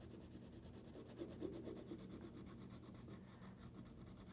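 Wax crayon colouring on paper: a faint, steady rubbing scratch.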